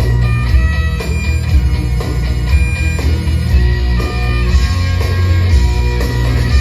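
Loud Celtic rock music for Irish dancing: a heavy, steady bass and guitar under a bright lead melody.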